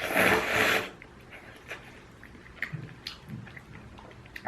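A loud slurp of ramyun noodles lasting about a second, followed by quieter chewing with small mouth clicks and smacks.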